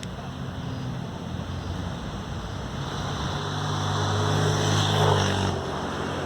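Motor vehicle engine passing by: a steady engine hum that grows louder to a peak about five seconds in, then fades.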